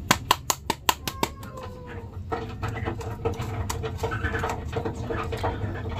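Sharp plastic clicks and rattles as a Thanos action figure is handled, coming fast in the first second or so. Under them a faint pitched sound slides down and then holds with a pulsing.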